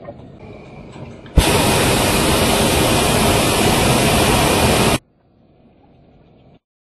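Hot air balloon's propane burner firing one blast of about three and a half seconds, a loud steady rushing hiss that starts abruptly about a second and a half in and cuts off sharply.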